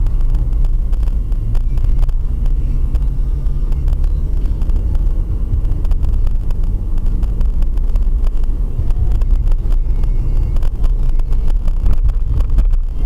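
A car on the road, with a steady low rumble of engine and road noise while driving.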